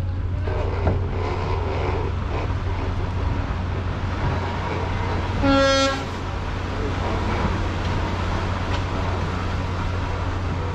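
A single short horn blast, about half a second long, sounds about halfway through over a steady low rumble, as a large wooden ship slides down the slipway into the water at its launch.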